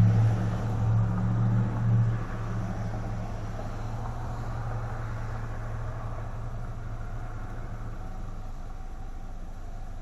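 A steady low mechanical hum with a constant pitch, louder for about the first two seconds and then dropping to a lower, even level.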